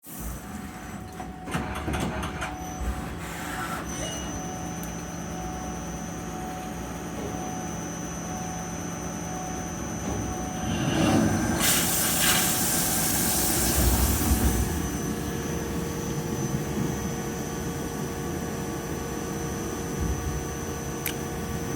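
CNC lathe running, with steady motor and spindle tones and a high whine. About halfway through comes a few seconds of loud hissing.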